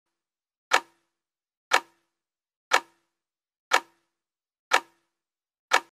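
Countdown timer tick sound effect: six sharp ticks, one a second, counting down the time left to answer.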